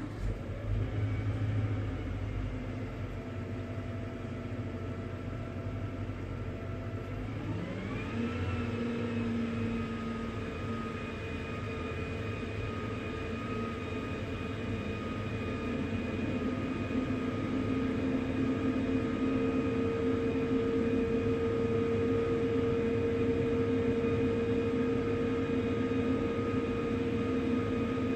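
Tow truck engine running steadily with a whine; about eight seconds in it speeds up, rising in pitch, and holds at the higher speed.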